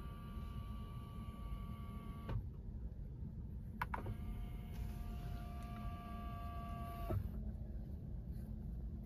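BYD Dolphin's motorised rotating infotainment screen, its motor whining steadily as the screen turns and stopping about two seconds in. A click just before four seconds, then the motor whines again at a slightly lower pitch for about three seconds and stops abruptly as the screen turns once more.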